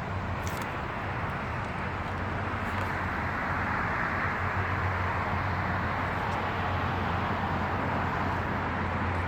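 Steady gas station background: a low mechanical hum under an even rushing hiss, unchanging throughout.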